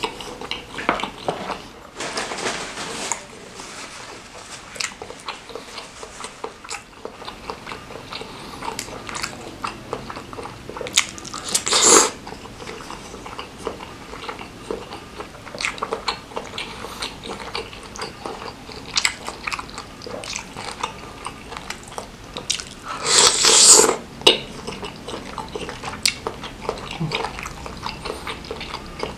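Close-up mouth sounds of a person chewing and biting into chewy beef-tendon meatballs in spicy broth, with many small wet clicks. Two louder bursts stand out, one about twelve seconds in and one about twenty-three seconds in.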